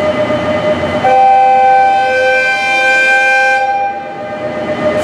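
A train's horn sounds one long blast of about two and a half seconds, starting about a second in. It is a departure signal from the Chichibu Railway SL train pulling out, over a steady hum from the train.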